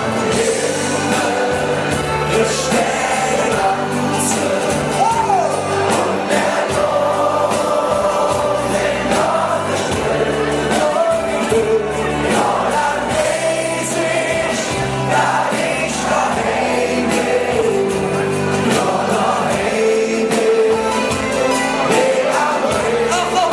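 Live band music with several voices singing together, a Kölsch-language carnival song.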